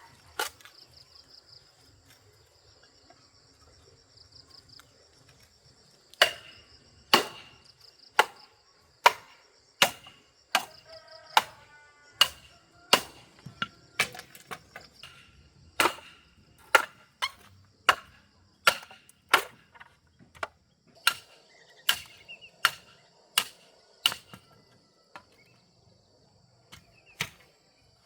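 Repeated sharp blows of a hand tool striking, about twenty in a row at roughly one every three-quarters of a second, starting about six seconds in and stopping a few seconds before the end. A steady, pulsing high insect drone runs underneath.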